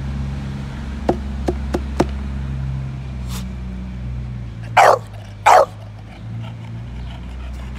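English bulldog barking twice, two short loud barks less than a second apart, with a third starting at the very end. A few light clicks come before the barks.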